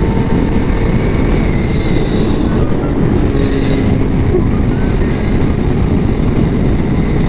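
Wind rushing over a helmet-mounted microphone with the Yamaha R1's 1000cc inline-four engine running steadily underneath, as the motorcycle travels at speed.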